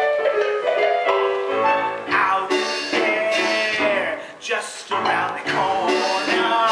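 Live stage-musical song: singers holding wavering, sustained notes over piano accompaniment.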